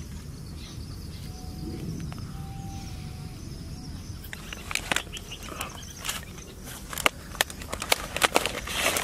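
Outdoor ambience with a low steady rumble, then, from about halfway, a run of sharp crinkles and clicks as aluminium foil food trays are handled and stacked.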